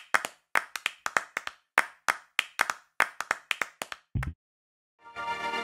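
Logo sting built from a rhythmic run of sharp clap-like hits, ending in a short low thud about four seconds in. After a second of silence, music with sustained chords comes in near the end.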